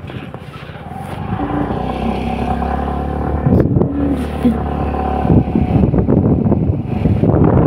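Vehicle engine running steadily, growing louder over the first few seconds, then wind noise on the microphone takes over about five seconds in.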